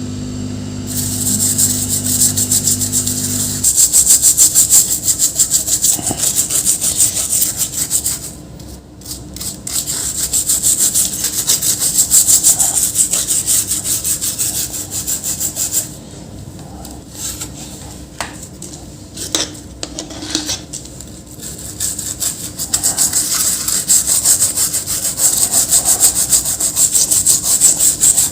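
A brush scrubbing a laptop motherboard in fast, regular back-and-forth strokes as the board is cleaned, pausing briefly twice. A steady low hum runs underneath at first and stops about three and a half seconds in.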